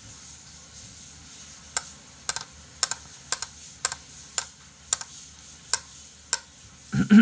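Sharp single clicks, about two a second and unevenly spaced, over a faint steady hiss. A man's voice starts near the end.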